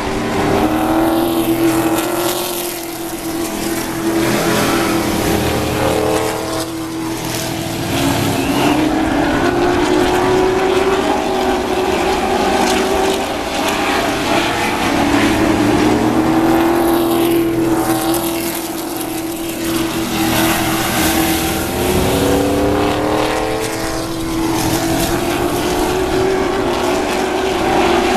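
A pack of late model stock cars racing on a paved oval, their V8 engines running hard. The engine pitch keeps rising and falling, and the sound swells and fades every few seconds as the cars come past.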